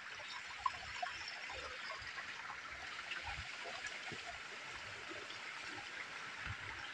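Spring water trickling out from between rocks and running along a small stream channel: a soft, steady watery hiss with scattered small ticks.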